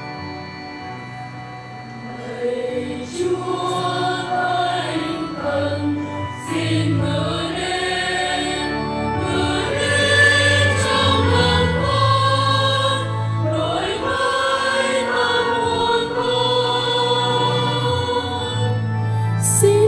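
Choir singing with organ accompaniment. The organ plays alone at first, and the voices come in about two seconds in.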